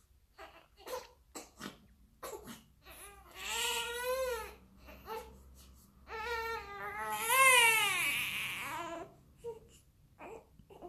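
Newborn baby crying: short fussy whimpers, then a wail about three seconds in and a longer, louder wail about six seconds in, trailing off into small whimpers.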